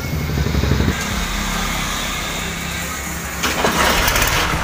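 Ford New Holland 3630 tractor's three-cylinder diesel engine starting: a brief pulsing of cranking as it catches in the first second, then running steadily, growing louder about three and a half seconds in.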